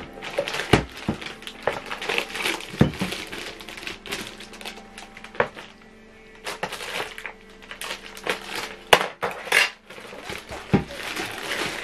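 Clear plastic wrap crinkling and rustling as it is handled around a laptop, with scattered sharp knocks and taps against the desk; the loudest is a sharp click about nine seconds in.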